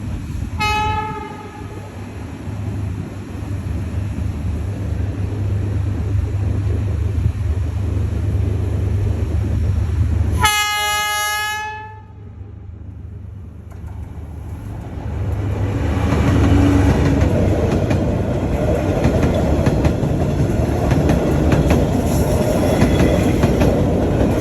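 D19E diesel-electric locomotive horn: a short toot about half a second in, then a longer, louder blast of about a second and a half near the middle that cuts off sharply. The rumble of the running train lies under it and swells about two-thirds of the way through.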